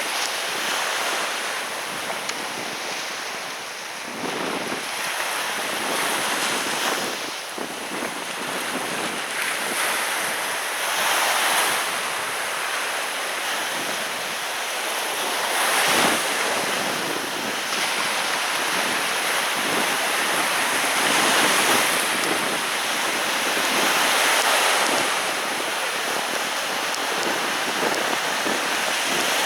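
Sea surf: waves breaking and washing up the shore in a steady hiss, swelling and easing every four to five seconds.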